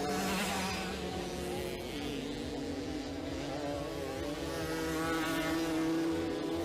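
Small two-stroke moped engines buzzing at high revs, several at once, their pitches rising and falling.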